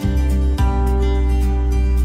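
Background music: strummed acoustic guitar over a steady deep bass.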